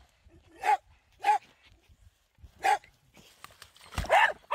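A dog barking: four short barks spaced a second or so apart, the last one a little longer and joined by a low thump.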